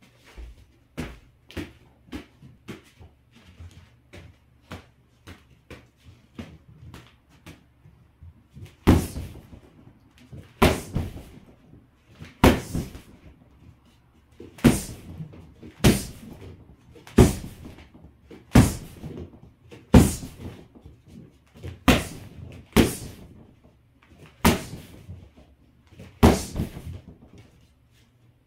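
Boxing gloves punching a freestanding heavy bag: light hits about twice a second for the first eight seconds or so, then harder single punches landing every second or two.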